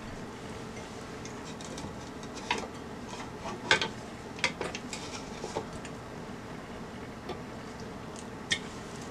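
A hand working flour and warm water into dough in a glass mixing bowl. There are irregular sharp clicks and knocks against the glass, several bunched in the middle and one more near the end, over a steady low background noise.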